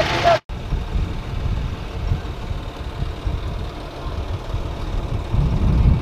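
A John Deere tractor's diesel engine idling, heard as a low, uneven rumble that swells near the end.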